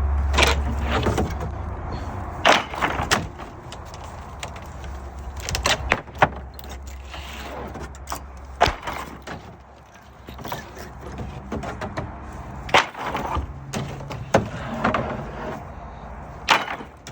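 Wooden deck boards being torn apart: irregular sharp cracks and knocks of wood, some a second apart and some several seconds apart, over a low steady hum that fades after the first few seconds. The deck is held together only with trim nails.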